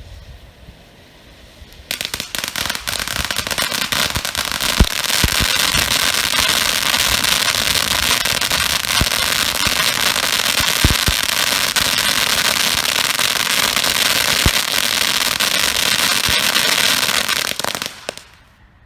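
Black Cat Darkside 500-gram fan fountain firework spraying, a loud steady hiss thick with small crackling pops, kicking in about two seconds in and cutting off shortly before the end.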